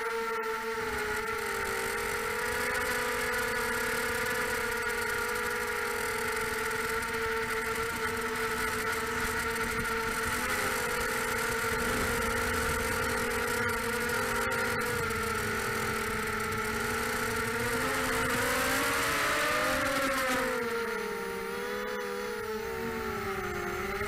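A Pitbull 250 FPV racing quadcopter's four brushless motors and propellers whining steadily in flight, picked up by the onboard camera. About eighteen seconds in the pitch wavers up and down with the throttle, then drops lower and a little quieter.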